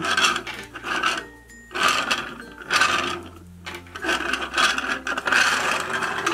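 Plastic wheels of a small toy car rolling back and forth on a hard tabletop: a rasping rub in several bursts, with short pauses between pushes.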